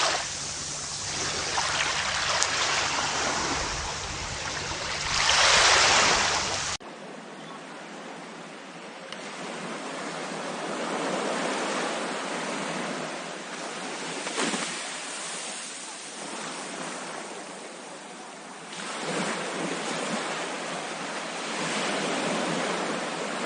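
Ocean surf washing on a shore, with one wave surging loudly about five to six seconds in. About seven seconds in, the sound cuts abruptly to a thinner, quieter wash of waves that swells and eases several times.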